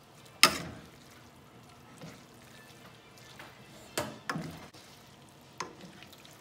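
Metal tongs clinking against the rim and sides of a stainless steel sauté pan while tossing spaghetti and shrimp: about half a dozen sharp clinks with a short ring, the loudest about half a second in.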